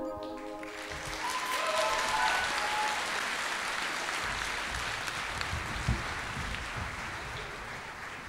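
Theatre audience applauding at the end of a song, swelling over the first couple of seconds and then slowly dying away.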